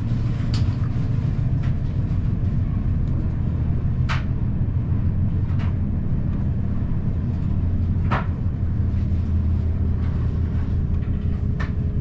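Inside the carriage of a Deutsche Bahn ICE 1 high-speed train running over the approach tracks: a steady low rumble of wheels on rail, broken by a handful of sharp clicks as the wheels cross joints and points. A faint steady whine comes in near the end.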